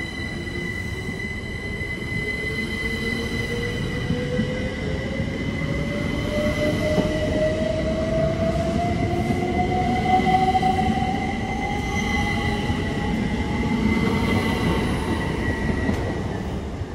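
A pair of Class 387 Electrostar electric multiple units accelerating away from the platform. The traction motors whine, rising steadily in pitch over the rumble of the wheels, with a steady high tone above. The sound fades near the end as the rear unit clears.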